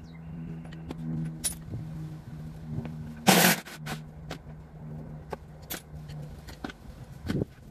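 Hand work on the front bumper of an old van: small metal clicks and knocks from tools and parts, with one brief loud clatter about three seconds in, over a steady low hum that stops about six seconds in.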